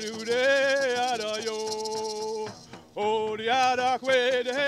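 Men singing a traditional Haudenosaunee Longhouse social dance song in vocables, with long held notes over a quick, even beat of hand drum and rattle. The song breaks off briefly about halfway through, then resumes.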